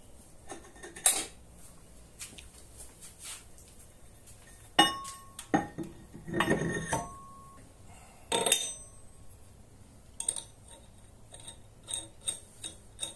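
Metal CBN grinding wheel being handled and fitted onto a bench grinder's shaft: a series of clinks and knocks, a few of them leaving a short ringing tone, with a longer scraping rub around the middle.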